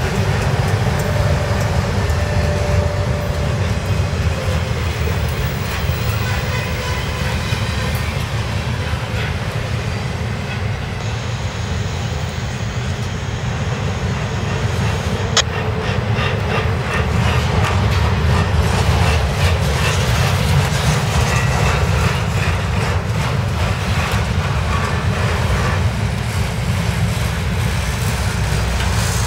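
Intermodal freight train's flat cars, loaded with highway trailers and containers, rolling past: a loud, steady rumble and clatter of steel wheels on rail, with one sharp click about halfway through.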